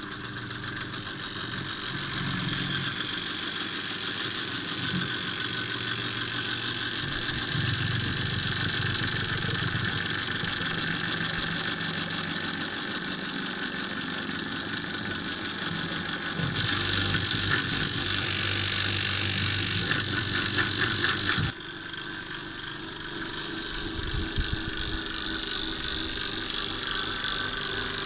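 A motor-driven machine starts up and runs steadily. From about two-thirds of the way in, a harsher, higher-pitched layer joins for roughly five seconds, then cuts off, and the machine runs on a little quieter.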